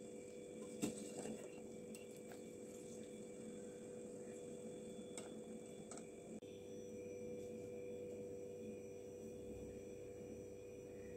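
Metal mesh strainer scooping pasta out of a steel pot of water, with a light metallic click about a second in and two fainter ones around five and six seconds, over a faint steady hum.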